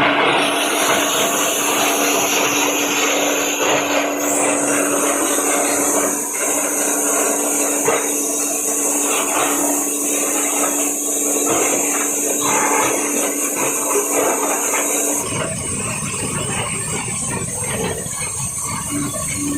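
A 10 HP PET bottle shredder running with a steady hum, its blades crunching and cracking plastic bottles into flakes in a dense stream of small clicks. About 15 seconds in, the hum stops and the sound turns to a lower rumble.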